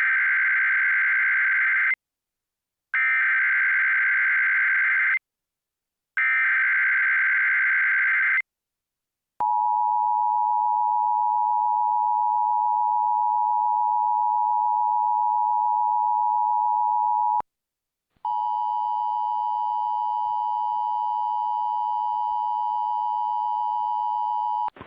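Emergency Alert System SAME header on NOAA Weather Radio: three bursts of rapid warbling digital data tones, each about two seconds long, announcing a Child Abduction Emergency activation. About nine seconds in, the steady 1050 Hz weather radio warning alarm tone sounds for about eight seconds. After a brief break, a second steady tone at the same pitch follows.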